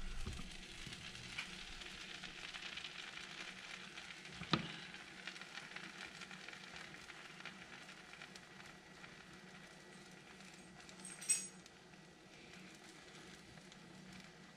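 Buttered bread sizzling softly as it fries in a cast-iron skillet, with two light knocks, one about four and a half seconds in and one near eleven seconds.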